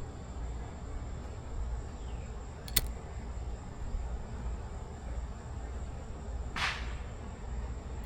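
Attempts at lighting a sparkler that has not caught yet: a sharp click about three seconds in, a short hiss near the end, and another click, over a steady low outdoor rumble.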